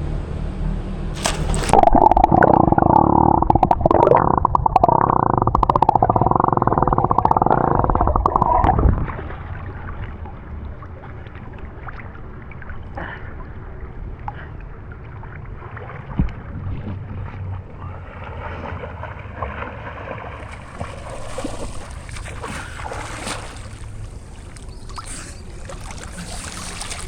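Muffled water sloshing and gurgling in a swimming pool, loudest for several seconds near the start, then settling to a quieter wash.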